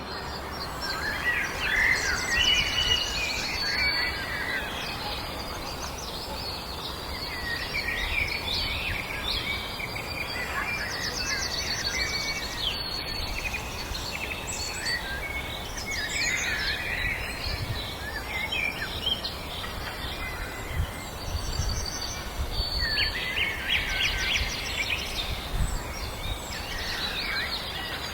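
Several songbirds singing together in a constant overlapping chorus of chirps, trills and short whistled phrases, over a steady outdoor background hiss with an occasional low rumble.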